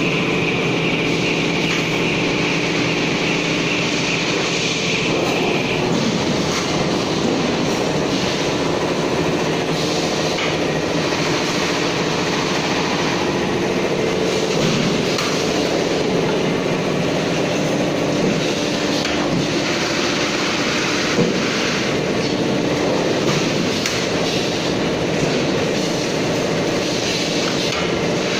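Running sheet-steel production line: a steady mix of machine hum and metal clatter, with a high steady whine for the first five or so seconds and one sharp knock about 21 seconds in.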